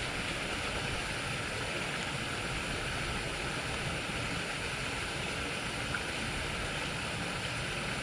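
Steady wind noise rumbling on the microphone, with a constant hiss and no distinct events.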